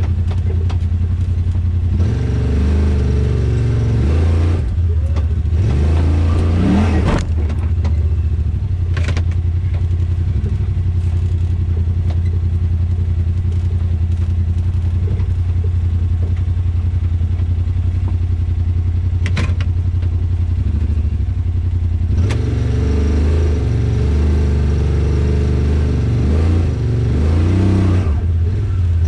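Yamaha Wolverine RMAX 1000's twin-cylinder engine running at low revs as the side-by-side crawls over rock, with throttle picking up a few seconds in and again near the end. A couple of sharp knocks are heard, about nine seconds in and past halfway.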